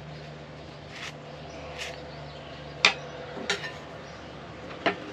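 A metal putty knife and small blade clinking and tapping against a tin and a mixing board while polyester filler is worked: five sharp taps, the loudest about three seconds in, over a steady low hum.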